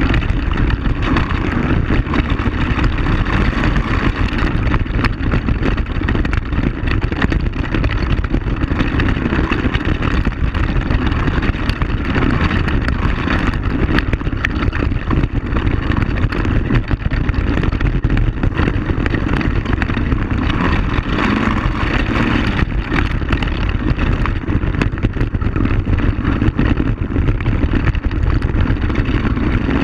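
ATV (quad bike) engine running steadily while riding a rough gravel trail, with frequent small knocks and rattles from the bumpy ride.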